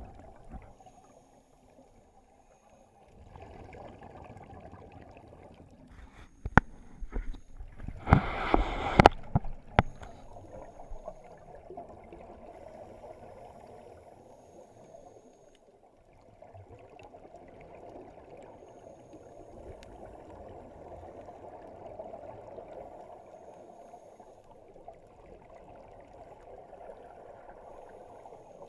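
Scuba divers breathing underwater, with their exhaled regulator bubbles rushing and bubbling past the submerged microphone in a steady muffled wash. A few sharp knocks come just before a loud burst of bubbles about eight seconds in.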